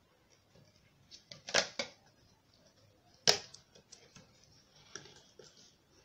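Plastic clicks and knocks as vacuum cleaner parts are handled and fitted together. A short cluster comes about a second and a half in, and one sharp click a little past three seconds, followed by lighter ticks and rattles.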